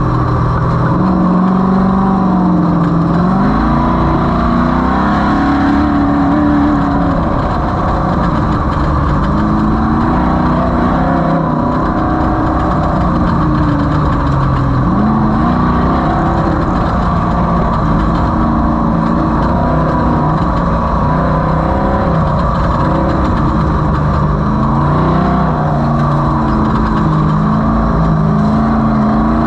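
Off-road race vehicle's engine running hard, its pitch climbing and falling again every few seconds as the throttle opens and closes.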